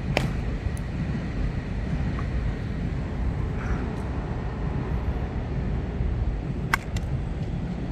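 Wind buffeting the microphone in a steady low rumble, broken by two sharp cracks of a baseball being struck or caught during fungo practice, one right at the start and one near the end.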